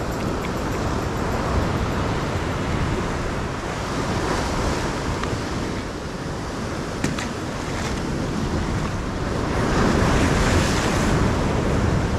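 Ocean surf breaking on a beach, swelling and easing, loudest about ten seconds in, with wind rumbling on the microphone.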